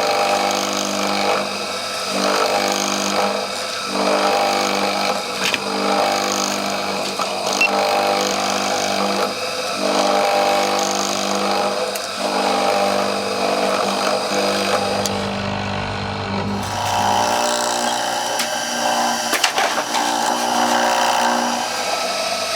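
A small power tool's motor running steadily while working bamboo, with a held whine whose low hum drops away about three-quarters of the way through.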